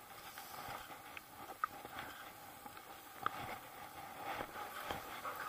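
Skis sliding and crunching through snow, with ski poles planting at irregular moments, over a steady faint hiss; two sharper clicks stand out, about a second and a half and about three seconds in.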